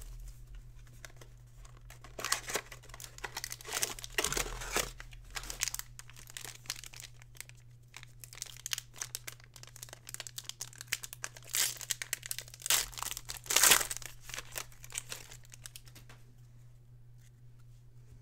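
Plastic wrapper of a Threads baseball card pack crinkling and tearing as it is opened by hand, in irregular crackly bursts, the loudest crinkle about three-quarters of the way through.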